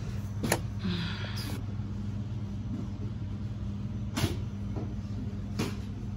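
Store background: a steady low hum, with three short sharp knocks or clicks, one just after the start and two in the last two seconds.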